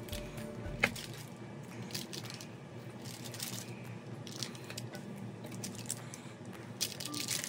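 Knife blade pressing down through soft chocolate fudge that has not fully set, onto parchment paper over a wooden cutting board: faint squishy cuts and light scrapes, with one sharp tap a little under a second in.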